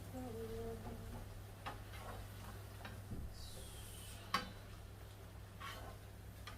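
Faint scattered clicks and taps, the sharpest about four seconds in, over a low steady hum.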